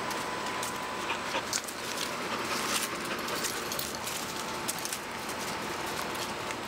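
Dogs playing rough together on dirt ground: scuffling and rustling, with many scattered light clicks over a steady outdoor hiss.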